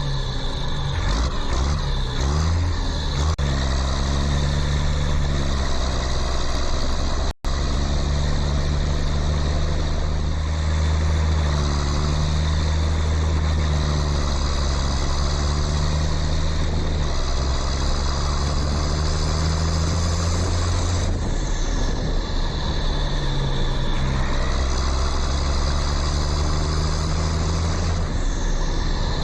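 A tractor-type engine running steadily with a low, even drone. It cuts out for an instant about seven seconds in, and its tone shifts a little around twenty-one and twenty-four seconds.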